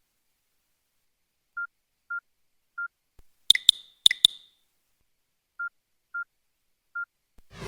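Short electronic alert tones from a Nokia N95 phone: three brief beeps at one pitch, then two quick double chirps, then three more of the same beeps. A loud swooshing sound begins at the very end.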